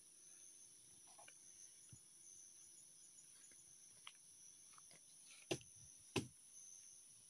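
Steady high-pitched chirring of insects such as crickets, with a few faint ticks and two sharp cracks a little over five and six seconds in.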